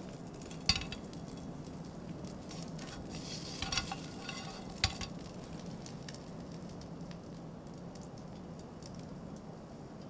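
Meat frying in a small pan on a portable gas camping stove, a light steady sizzle, with chopsticks clinking and scraping against the pan. A sharp knock under a second in as the pan goes back down on the stove, and a few smaller knocks around four to five seconds in.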